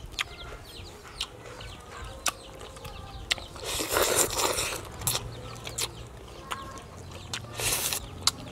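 Chickens clucking, with scattered sharp clicks and two louder bursts of noise, one about four seconds in and a shorter one near the end.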